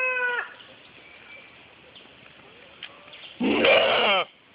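Goat yelling: a long steady call falls away and stops just after the start, then a loud, harsh, wavering bleat of under a second comes about three and a half seconds in. The calls sound strangely human, like a person screaming.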